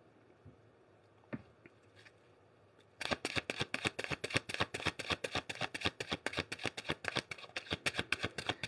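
A tarot deck being shuffled by hand. A few faint taps come first, then about three seconds in a quick, steady run of card slaps and riffles begins, several a second.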